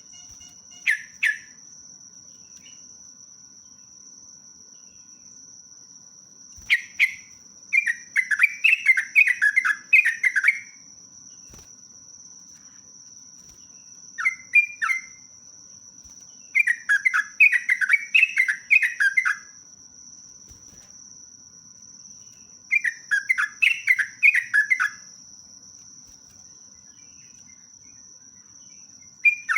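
Yellow-vented bulbul (trucuk) singing its rolling song: runs of quick, bubbling notes lasting one to three seconds, repeated about six times with pauses of a few seconds between.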